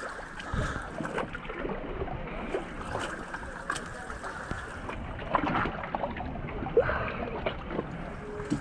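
Sea water lapping and splashing among rocks close to the microphone, with many small irregular splashes and a sharper splash near the end.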